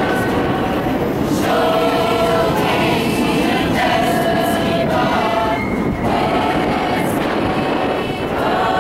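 A large choir of children and adults singing together under a conductor, holding sustained chords that change every second or two, with brief breaks between phrases. A steady low rumble runs underneath.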